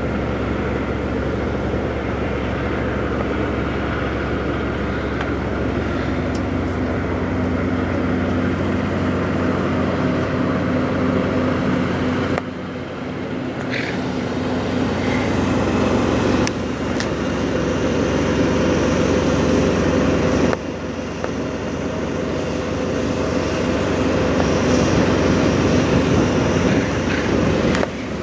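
Peterbilt 389 semi truck's diesel engine idling steadily. The level shifts abruptly a few times.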